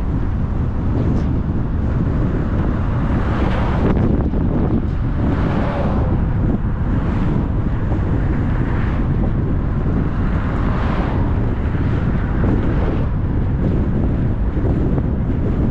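A car driving along a road: steady low road and wind noise, with brief rushes every second or two.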